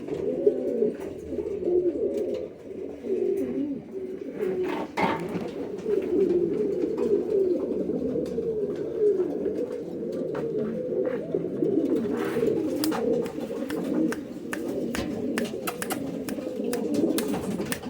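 Many buchón pigeons cooing at once in a loft, a dense overlapping low burble of coos, with scattered short taps and clicks.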